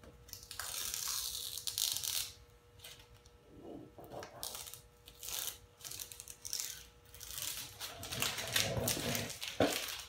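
Vinyl decal backing paper and clear transfer tape being peeled and pressed down by hand: irregular rustling and crinkling in uneven bursts, heaviest about a second in and again near the end.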